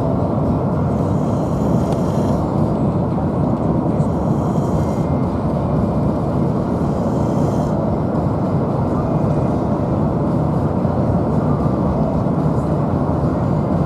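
Steady road and engine noise of a moving vehicle heard from inside, a continuous low rumble with faint hiss that swells and fades now and then.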